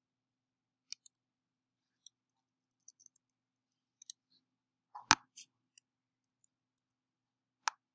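Scattered sharp clicks from computer mouse buttons and keys while an image is edited on screen, with the loudest, fuller knock about five seconds in and another strong click near the end.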